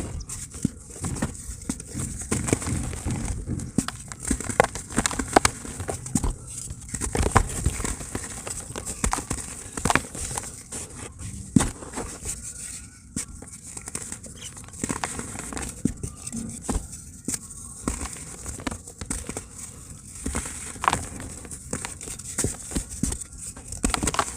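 Dry cement crumbling and breaking apart in a tub: irregular crunching and crackling made of many small sharp cracks and soft thuds.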